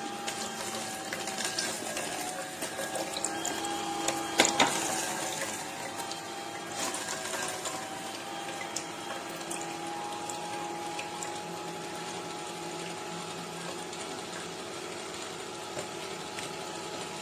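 Severin electric slow juicer running steadily, its motor humming with a slightly wavering pitch, with a few sharp knocks about four and a half seconds in.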